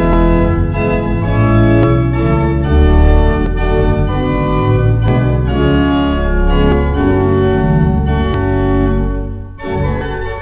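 Church organ playing sustained chords over a moving bass line, with a brief break between phrases near the end before the playing resumes.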